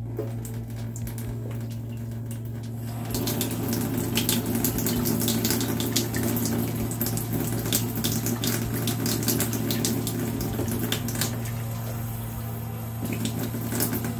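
Kitchen tap running into a stainless steel sink. The flow gets louder about three seconds in, eases briefly near the end, then picks up again, over a steady low hum.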